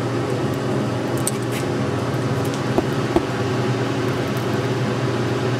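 Steady machine hum with several steady low tones, with two faint clicks about three seconds in.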